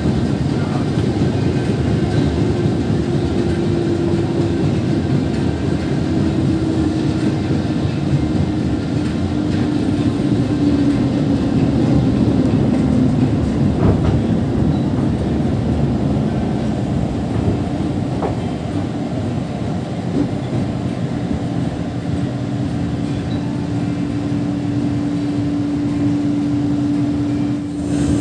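Steady running noise of a KRL Commuter Line electric train heard from inside the carriage on the move, with a motor hum that sinks a little in pitch partway through and then holds steady. Right at the end an oncoming train starts to rush past.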